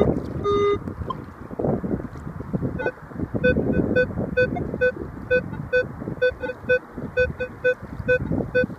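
Minelab Equinox 600 metal detector beeping: one lower, longer beep near the start, then from about three seconds in a run of short, higher beeps, two or three a second, as it signals on a target that its display reads at 12. Strong wind buffets the microphone throughout.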